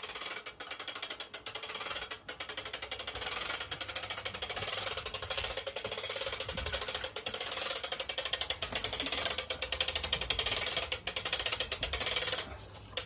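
Hand-cranked winch ratchet clicking rapidly as it is wound, hoisting the gazebo roof, with a short pause near the end.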